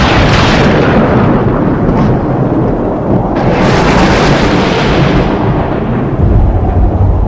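Thunder rumbling, loud and continuous, with a sharp crack about three and a half seconds in that fades into a long low rumble, which swells again near the end.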